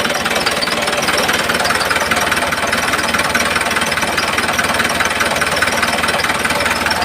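Small electric motor and gearing of a homemade model tractor running steadily, with a fast, even rattling buzz.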